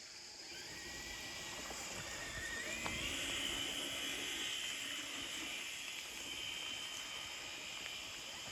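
Electric motor of a radio-controlled truck whining. Its pitch rises about two and a half seconds in and then holds steady, over a steady chirr of crickets.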